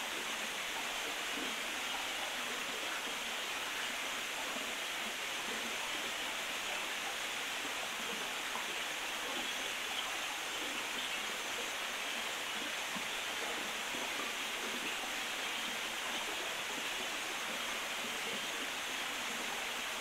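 A small rocky stream running over low cascades, giving a steady rush of flowing water.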